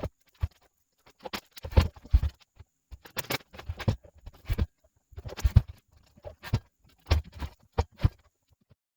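A run of irregular knocks, clunks and thuds, about fifteen to twenty of them with short pauses between, some heavy and deep: hands-on handling and knocking in a garage workspace.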